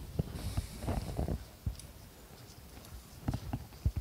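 Handling noise from gloved hands working on an SU carburettor: rustling of rubber gloves and scattered small clicks and knocks of metal parts, with a few sharper knocks near the end.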